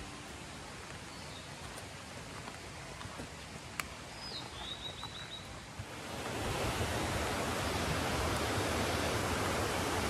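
Rushing water of a small mountain stream, a steady noise that grows clearly louder about six seconds in as the cascade comes near. A bird calls briefly with a short run of notes near the middle.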